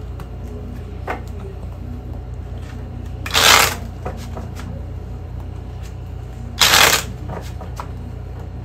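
A deck of playing cards being shuffled by hand: two short riffling bursts about three seconds apart, with light card handling in between.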